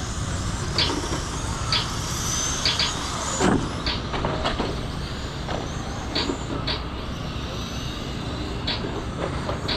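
Radio-controlled cars racing on an asphalt oval: a faint whine that rises and falls as cars pass, over a steady low rumble, with short sharp ticks now and then.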